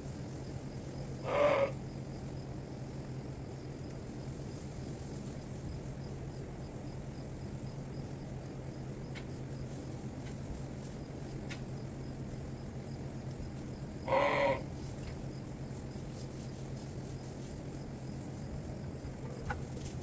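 Sheep bleating twice, short calls about a second in and about fourteen seconds in, over the steady hum of a barn fan.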